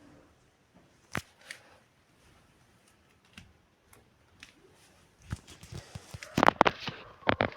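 Handling noises: a few sharp clicks and knocks. A single one comes about a second in, and a denser run of louder knocks near the end.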